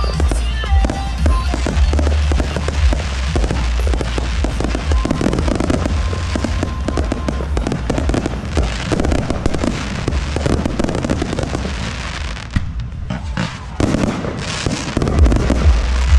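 Aerial fireworks going off in quick succession, bangs and crackles over loud music with a heavy bass, easing off briefly about three-quarters of the way through.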